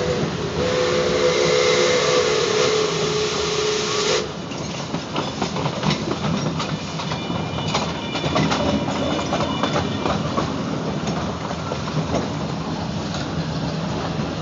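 4-4-0 steam locomotive's whistle giving a long blast, two notes sounding together over a rush of steam, cutting off abruptly about four seconds in. The train then runs on with the wheels clicking and clattering over the rail joints, and a thin high squeal for a few seconds in the middle.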